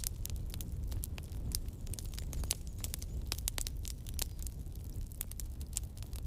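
Campfire burning, its wood crackling and popping in quick irregular snaps over a low steady rumble of the flames.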